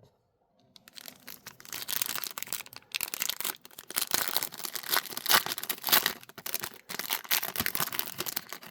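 Wrapper of a trading card pack being torn open and crinkled, starting about a second in as dense, rustling crackle.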